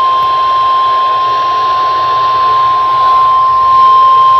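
NOAA Weather Radio warning alarm tone: one steady, unbroken 1050 Hz tone over radio hiss, the signal that a warning message is about to be read.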